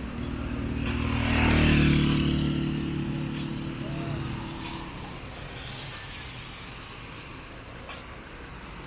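A motor vehicle passing close by on the street, its engine and tyres growing louder to a peak about two seconds in, then fading away.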